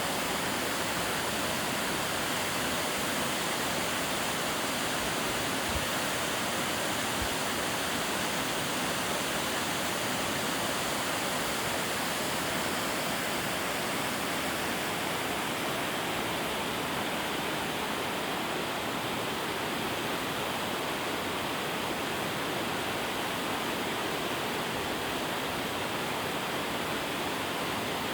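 Shirahige Falls: a steady, even rush of falling water.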